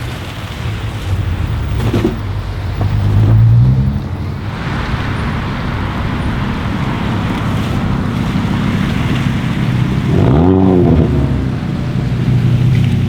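Hyundai i30 N's turbocharged four-cylinder engine running, with the revs climbing about three seconds in and a quick rev blip that rises and falls about ten seconds in.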